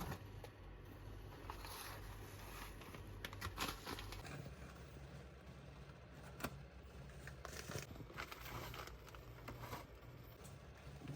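Faint, scattered clicks and rustles over a steady low hum.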